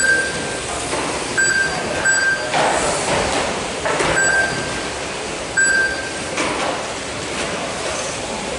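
Schumacher GT12 1/12-scale electric pan cars racing on a carpet track: the whine of motors and the hiss of tyres swell as cars pass close. Five short, high beeps from the lap-timing system mark cars crossing the timing line.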